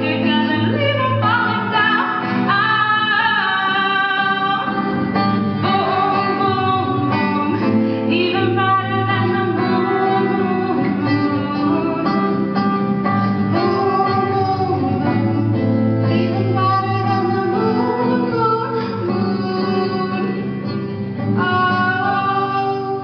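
A woman singing while strumming an acoustic guitar, her sung notes often held about a second over steady chords.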